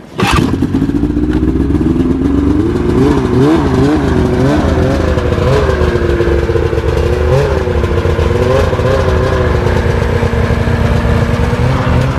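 Ski-Doo snowmobile engine running, coming in suddenly, then its pitch rising over the first couple of seconds and wavering up and down with the throttle as the sled moves off through the snow.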